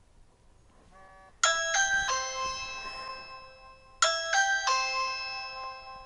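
Ring doorbell alert ringtone sounding from a smartphone speaker: a faint quick run of notes, then a three-note electronic ding-dong chime played twice, about two and a half seconds apart, each ringing out. It is the app's signal that the doorbell button was pressed, arriving after a delay called far too long.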